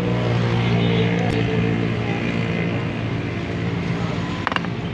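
Chainsaw's two-stroke engine running steadily at a fairly low speed after repair, with a brief clicking knock about four and a half seconds in.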